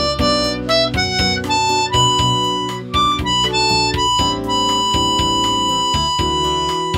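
Harmonica playing a slow ballad melody over a guitar accompaniment: a run of short notes, then a long held note from about four seconds in.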